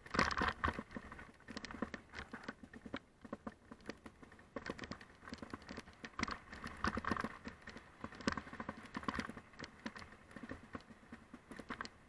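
Mountain bike rolling down a loose gravel trail: tyres crunching over stones and the bike rattling over bumps, a dense run of irregular clicks and knocks that swells and eases.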